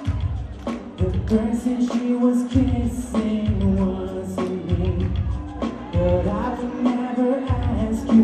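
A male pop vocalist singing live into a handheld microphone over pop accompaniment with a steady, bass-heavy beat.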